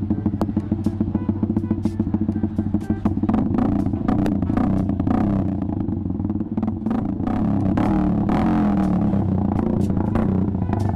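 Suzuki Gixxer's single-cylinder engine running through an aftermarket SC Project exhaust, a loud, fast, even exhaust pulse with scattered sharp ticks.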